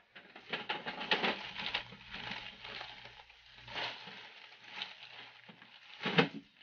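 Irregular rustling and crackling with small clicks: paper sheets being handled and pushed into the automatic document feeder of a Brother DCP-L2540DW. A short louder sound comes near the end.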